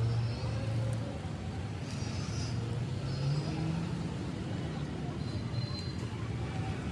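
Street ambience: a steady rumble of road traffic with a low hum, and a few faint high tones from distant vehicle horns.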